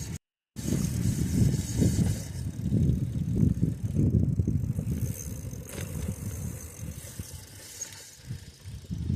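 Rumble of a bicycle riding over a dirt trail: tyre noise and rattling, with wind buffeting the microphone. The sound cuts out briefly just after the start.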